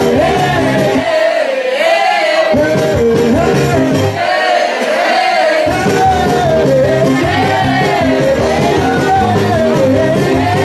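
Loud dance music with a lead vocal, played through a DJ's sound system. The bass drops out twice for a second or so in the first half, then comes back.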